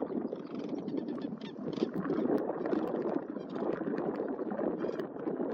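Large flock of sandhill cranes calling together, a continuous chorus of overlapping rolling, rattling calls.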